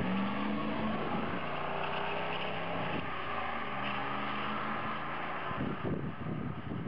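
Car engine running under way, its note changing in pitch as the throttle is worked, dropping about a second and a half in and turning rougher near the end.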